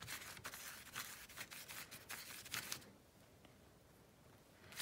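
Watercolour brush scrubbing across wet, crumpled paper in a quick run of faint strokes, several a second, stopping about three seconds in.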